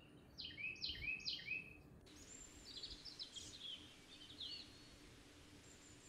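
Red-whiskered bulbul calling: four quick whistled notes, each falling in pitch, in the first two seconds, then a short run of brisk chirps.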